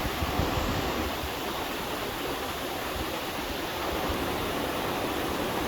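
Twin slide waterfalls of a mountain stream, water rushing steadily over sloping rock, with a few brief low bumps in the first half-second.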